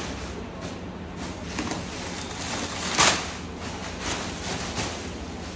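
Plastic bubble-wrap packaging rustling and crinkling as it is pulled off and lifted away, with a sharp crackle about three seconds in.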